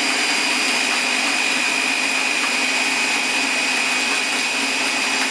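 Single-speed countertop blender running steadily at full speed, blending a fruit smoothie with ice cubes in the jar. A loud, even motor whine that does not change in pitch.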